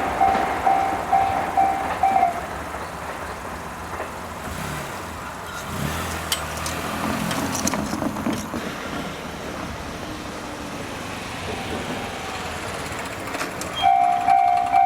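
Railway level-crossing warning bell ringing in rapidly repeated electronic dings, which stops about two seconds in and starts again near the end. In the quiet stretch between, a road vehicle passes.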